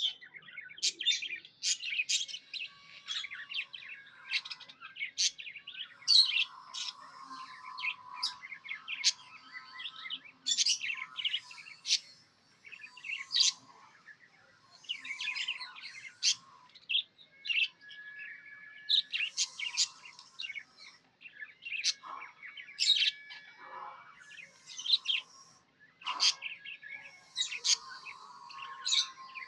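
Pet budgerigars chirping and warbling: a constant stream of quick, high chirps and twittering trills with short pauses.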